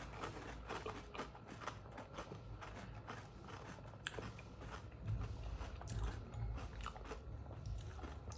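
Close, fairly quiet chewing of panipuri: crisp puri shells crunching and crackling between the teeth in many small irregular clicks, with one sharper crack about four seconds in.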